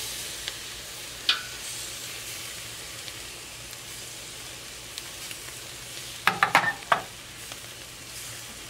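Steady sizzling of chicken drumsticks and freshly brushed glaze on the hot grate of a Pit Barrel Cooker, with a few light clicks of the basting brush and a short cluster of knocks about six seconds in.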